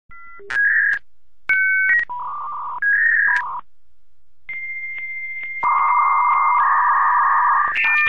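Synthesized intro jingle: a sequence of short, steady electronic beeps and tones that switch abruptly in pitch, with a longer held buzzy tone from about halfway to near the end.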